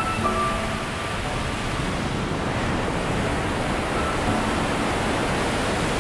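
Steady rushing wash of ocean surf, with a few faint held tones over it near the start and again about four seconds in.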